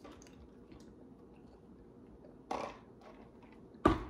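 Drinking lemonade through a straw from a large paper fountain-drink cup, mostly quiet, with a short rush of noise a little past halfway. Near the end there is a sharp knock as the cup is set down on the countertop.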